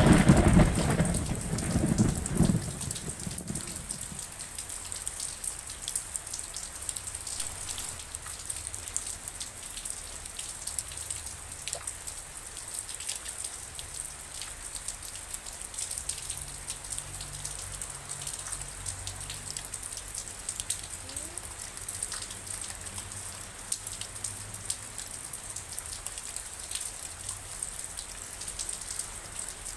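Steady rain falling, with many small raindrop ticks over an even hiss. A loud roll of thunder dies away in the first two or three seconds.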